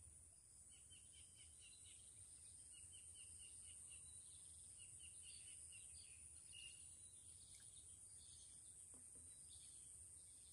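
Faint outdoor ambience: a small bird chirping in quick runs of short repeated notes, over a steady high-pitched insect drone.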